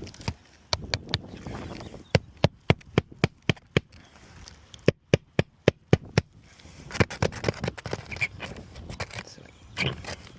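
Hammer tapping roofing nails into asphalt shingles in quick runs of strikes, about four a second, with scraping and rustling of the shingle between the runs.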